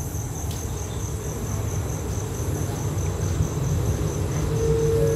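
Crickets chirping in a steady pulsing rhythm over the low rumble of an approaching diesel locomotive, which grows louder. Near the end the locomotive's horn begins to sound, one steady note.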